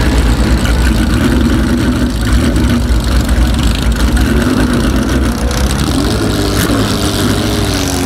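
A race car's engine idling steadily with a low rumble.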